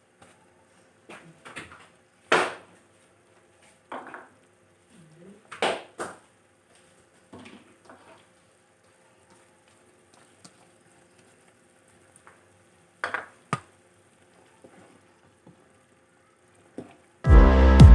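Scattered kitchen clatter: a series of short knocks and clinks of utensils and cookware over a faint steady hum. Loud electronic music with a beat comes in near the end.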